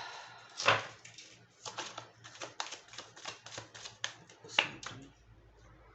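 Oracle cards being shuffled by hand: one sharp snap, then a quick run of crisp card flicks for about three seconds that stops near the end.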